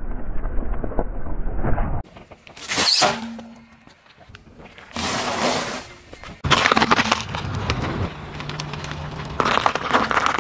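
A car tyre rolling over objects and crushing them, with abrupt changes between short takes. Dense crunching and crackling runs from about two-thirds of the way in, as round crackers break and crumble under the tyre.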